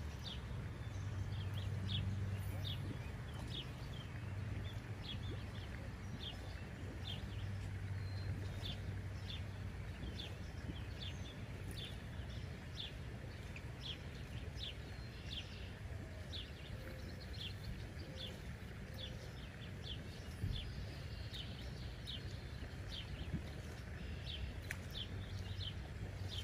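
A bird calling over and over with short, high, down-slurred chips, about one and a half a second, over a steady low rumble.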